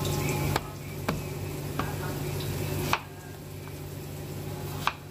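Food sizzling as it fries in a pan, stirred with a utensil that clinks against the pan several times. The sizzle is louder for the first three seconds and drops after a knock, over a steady low hum.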